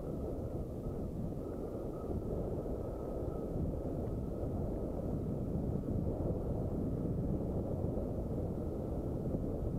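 Wind buffeting the microphone of a camera on a mountain bike riding downhill on a dirt track, mixed with the low rumble of the bike rolling over the rough ground.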